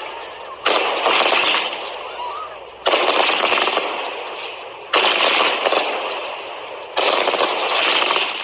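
Home-made fireworks crackling: dense runs of rapid pops, four of them, each starting suddenly about two seconds apart and fading away.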